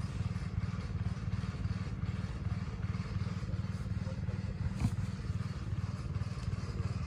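An engine idling steadily with a low, fast putter, with one short sharp knock about five seconds in.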